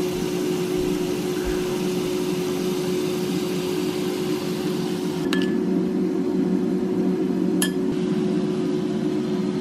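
A steady hum runs throughout, with two short metallic clinks about five and seven and a half seconds in.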